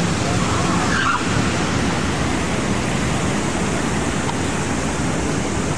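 Steady rush of splashing water from a large plaza fountain, its spray and cascade falling into the basin, mixed with street traffic noise.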